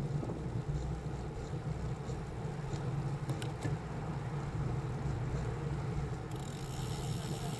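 Steady low rumble of wind and road noise on the microphone of a bicycle-mounted camera while riding a road bike. There are a few light clicks about three and a half seconds in, and a brighter hiss comes in suddenly near the end.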